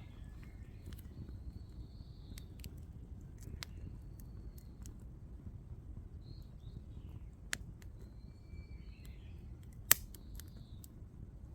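Birds chirping now and then over a steady low outdoor rumble, with scattered sharp clicks; a louder snap comes near the end.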